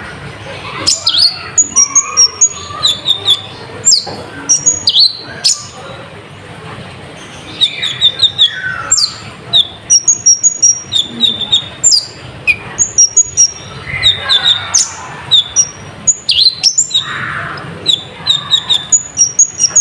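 Brown-throated sunbird (konin) singing a loud 'gacor' song of rapid, very high, sharp chirps and trills in repeated bursts, full of copied phrases from other birds ('full isian'). There is a short pause about six seconds in.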